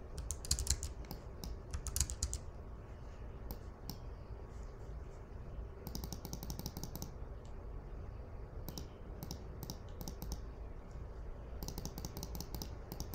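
Typing on a computer keyboard in short runs of keystrokes with pauses between, including a quick burst about six seconds in and another near the end.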